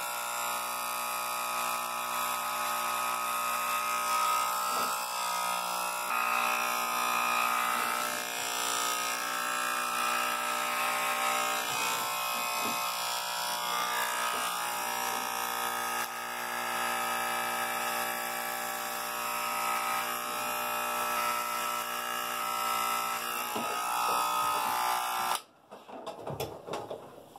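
Corded electric hair clippers buzzing steadily as they shave the side of a head down to the skin. They switch off abruptly near the end, leaving faint rustling of a hand over the freshly shaved scalp.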